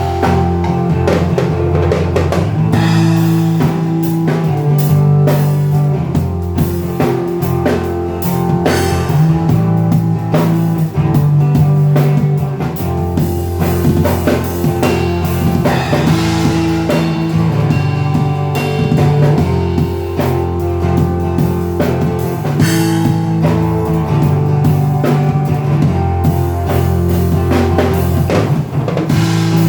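A band playing an instrumental rock-style tune at a sound check, with drum kit and bass drum keeping a steady beat over guitar and held bass notes.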